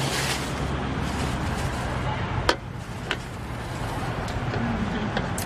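A metal spatula knocking against a steel wok during stir-frying: one sharp clank about two and a half seconds in, a lighter one just after, and a few faint taps, over a steady low rumble.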